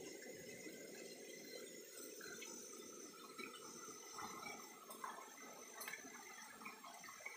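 Faint steady rush of a small stream of water cascading down a rock face, with a few light knocks.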